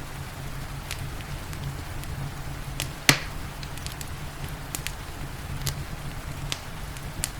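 Wood fire crackling in a fireplace, with scattered sharp snaps and one loud pop about three seconds in, over a steady hiss of rain.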